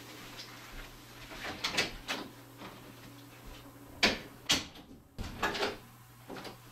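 Footsteps and soft knocks, then a door being opened, with sharp clicks and knocks of its handle and latch starting about four seconds in.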